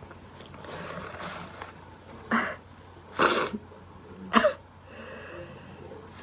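A woman sneezing: a few breathy inhales, then three sharp sneezes about a second apart, the last the loudest.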